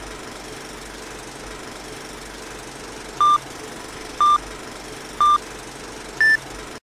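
Film-leader countdown sound effect: a steady mechanical projector rattle, then three short beeps a second apart and a fourth, higher-pitched beep a second later. The sound cuts off suddenly right after the last beep.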